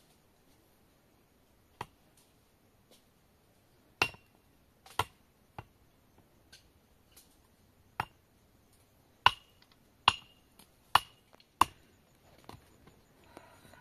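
A metal digging tool striking stony ground in a series of sharp blows at uneven intervals, several with a short metallic ring. The blows grow louder and come closer together in the second half.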